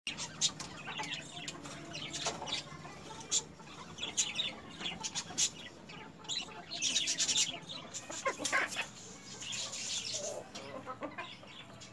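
Chickens clucking and calling while feeding, with many short sharp taps of beaks pecking in a metal feeding pan. One louder call comes about two-thirds of the way in.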